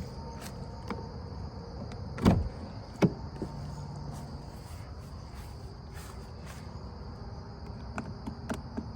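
Infiniti G37 with faulty wiring making a steady high-pitched electrical buzz, an unexplained noise that started once the battery was connected. A thump comes about two seconds in, a sharp click just after, and light clicks near the end.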